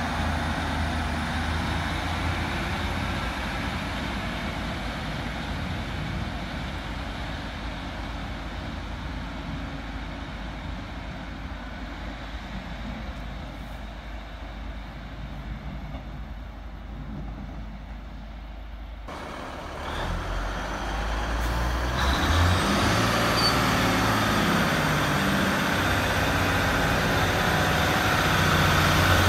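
Class 150 Sprinter diesel multiple unit pulling away, the drone of its diesel engines fading steadily as it goes. About twenty seconds in, another diesel multiple unit's engines grow louder as it passes close by.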